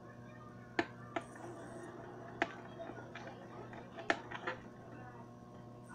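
Several sharp clicks and knocks, about six spread unevenly over the few seconds, over a steady low hum.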